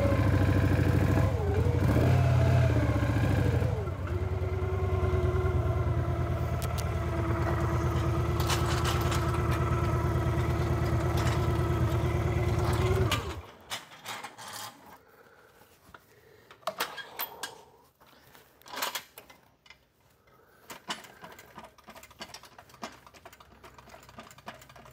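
2000 Victory V92SC Sport Cruiser's V-twin engine running: a few revs in the first four seconds, then a steady idle that cuts off suddenly about halfway through. Faint clicks and knocks follow.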